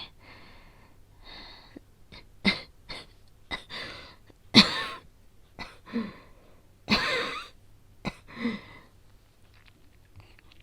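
A woman coughing, acted as a sick, asthmatic character: soft breaths at first, then a string of about ten sudden coughs from about two and a half seconds in, the two hardest about halfway and about two-thirds through, dying away before the end.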